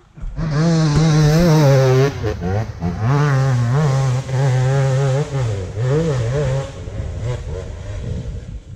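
Enduro dirt bike engine revving hard on a steep hill climb, the pitch rising and falling with the throttle. The note dips briefly about two seconds in and drops back to a quieter, lower rumble near the end.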